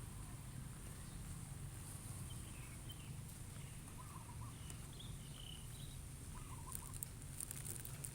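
Faint, short bird calls a few times over a steady low rumble, with a few light clicks near the end.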